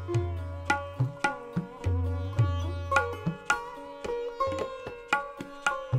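Instrumental music in an Indian classical style: a plucked string melody of quick notes, some sliding in pitch, over deep drum strokes.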